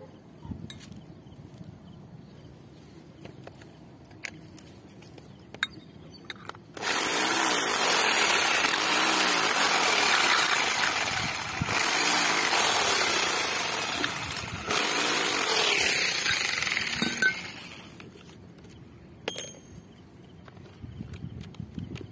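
A power tool runs loudly for about ten seconds, starting about seven seconds in and dipping briefly twice before it stops. Scattered small clicks and knocks come before and after it.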